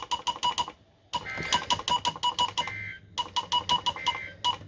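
NOAA Weather Radio broadcast ending an alert with the SAME end-of-message code: three short bursts of two-tone digital data tones at even intervals. Under them runs a rapid electronic beeping at a fixed high pitch.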